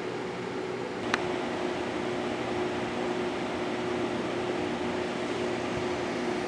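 Steady fan-like hum and hiss with a low steady tone, and a single sharp click about a second in.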